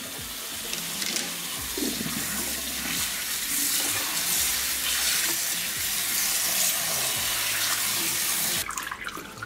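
Kitchen tap running cold water into a glass bowl of cut sweet potato sticks in a stainless steel sink as hands swish them to rinse off the starch; the steady splashing breaks off shortly before the end.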